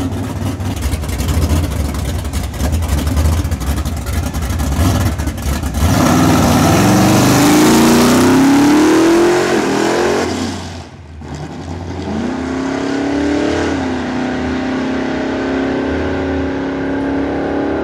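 Drag race car making a pass. For about six seconds the engine runs rough and crackling with many rapid pops, then it goes to full throttle with a loud run and its pitch climbing. About eleven seconds in the sound drops away sharply, then the engine note climbs again and holds steady. It is a launch that was called not a very good hit.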